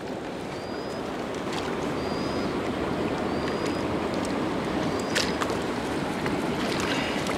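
Water rushing steadily at a river dam, a continuous even roar that grows slightly louder, with faint short high chirps recurring every second or so.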